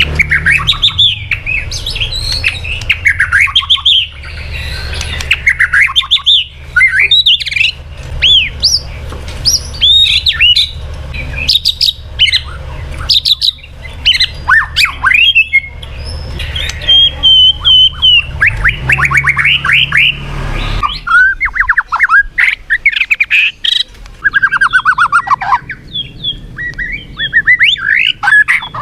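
White-rumped shama singing a fast, varied song of whistled notes, slurs and harsh chirps, over a low hum that stops about two-thirds of the way through.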